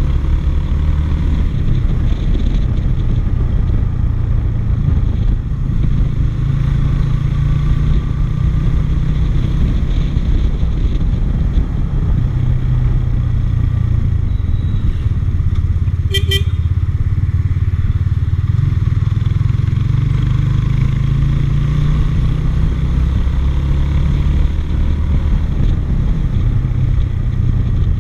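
A motorbike ride heard from an on-board action camera: a steady low rumble of engine, road and wind noise. About halfway through comes one short beep, like a horn.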